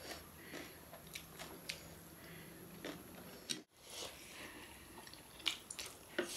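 Faint eating sounds: two people chewing and slurping instant noodles, with light scattered clicks of forks on plates.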